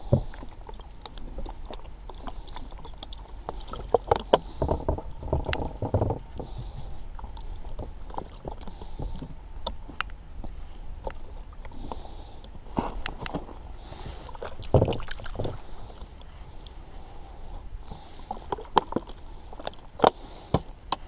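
Water poured from a plastic bottle over raw crappie fillets on a wooden cutting board, splashing and trickling in short spells as the wet fillets are rubbed clean by hand. Scattered clicks and knocks of handling come through between the pours.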